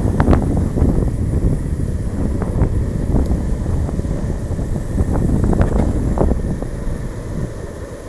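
Longboard rolling fast downhill on asphalt: a loud, steady rumble of wheels on the road mixed with wind buffeting the microphone, with scattered sharp clicks and knocks at the start and again about five to six seconds in.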